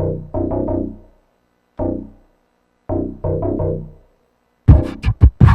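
A synthesizer keyboard plays a ringtone melody in short phrases of a few quick notes, with silent gaps between them. About four and a half seconds in, a louder drum-machine beat comes in.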